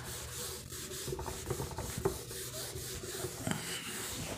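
Soft, scratchy rubbing noise made up of many small irregular scrapes.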